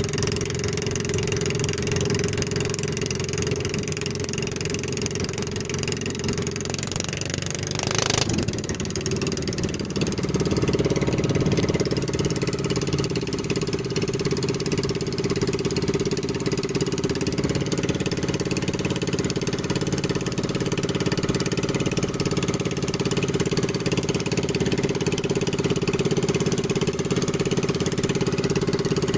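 Outrigger boat's engine running steadily under way. There is a sharp knock about eight seconds in, and from about ten seconds on the engine runs louder.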